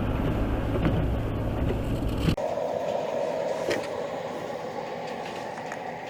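Steady low rumble of a truck's cabin on the move, cutting off abruptly a little over two seconds in and giving way to a quieter, steadier hum.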